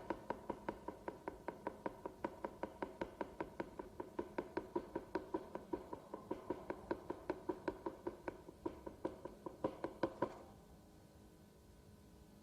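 A rapid, even series of sharp mechanical clicks or knocks, about five a second, each with a short ringing tone. It stops about ten seconds in, leaving only a faint steady hum.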